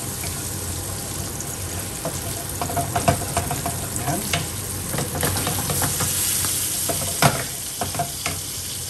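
Steady sizzling from sea bass fillets pan-frying in oil and from garlic butter sauce in a second pan. A wooden spatula stirs and scrapes the sauce, with a few light knocks against the pan.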